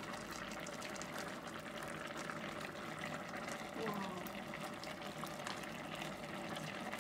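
Pot of mutton curry simmering, a steady bubbling with fine popping ticks, while a wooden spatula stirs through the meat and gravy.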